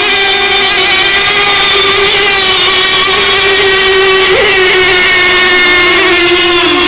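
Radio-controlled racing boats running flat out on a pond, their small motors making a steady, high-pitched whine that sags slightly in pitch near the end.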